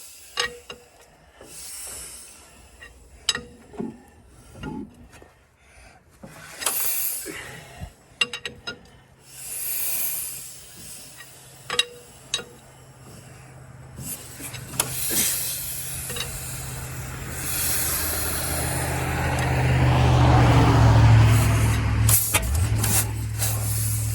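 Hand-cranking of a Caterpillar Sixty's big four-cylinder gasoline engine: clicks and scraping at first, then the engine fires and runs roughly for a few seconds, loudest a little before the end, without fully catching.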